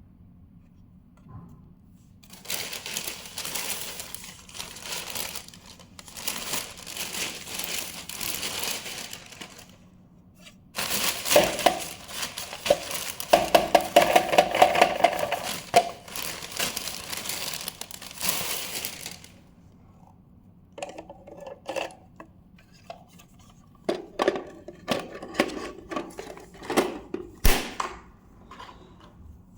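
Plastic dustbin of a Shark robot vacuum being handled and emptied: two long spells of rustling and scraping, then a run of separate plastic clicks and knocks in the last third.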